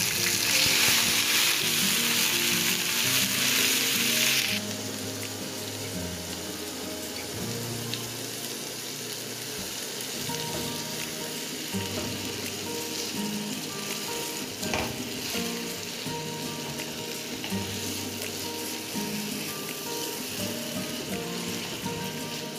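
Soaked minced soya chunks frying in hot oil in a metal pan: a loud sizzle as the wet soya goes into the oil, dropping after about four seconds to a steadier, quieter sizzle as it is stirred with a spatula and its soaking water fries off.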